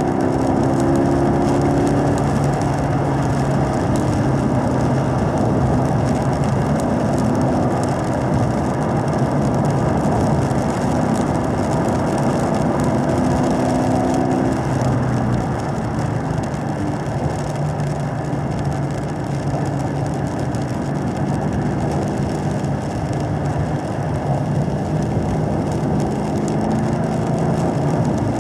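A 2017 Camaro SS 1LE's 6.2-litre V8 pulling steadily at about 4,000 rpm, heard from inside the cabin over a constant hiss of tyres on wet track. A little past halfway the engine note drops and gets slightly quieter as the throttle eases, then holds steady.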